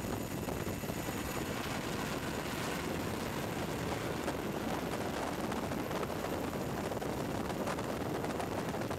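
Steady cabin noise of a helicopter in flight: an even rush of rotor and engine noise with a few faint steady high whines.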